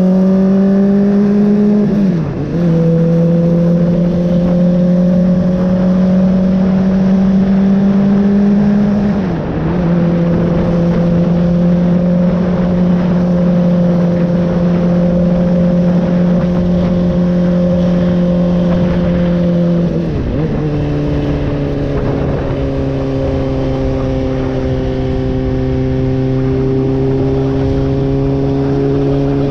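Honda CBR600RR's inline-four engine pulling at road speed over a steady rush of air and road noise. Its pitch climbs slowly, then three times (about two, nine and twenty seconds in) it dips briefly and comes back lower, as the rider shifts up a gear.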